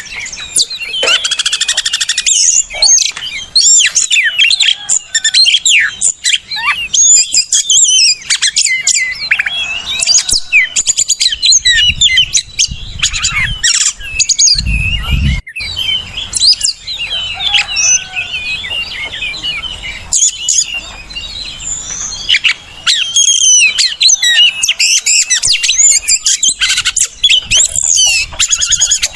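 Oriental magpie-robin (kacer) singing: a fast, continuous, varied song of whistled glides, trills and chirps, with a brief low thump about halfway through.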